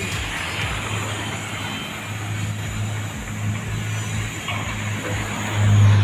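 Road traffic: vehicle engines with a steady low hum and tyre noise, growing louder near the end as a car passes close.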